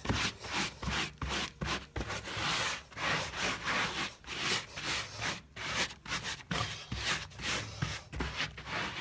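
Rubber-gloved hand rubbing hard back and forth over carpet, a quick run of scratchy strokes about two to three a second, pulling up hair and dust the vacuum cleaner left behind.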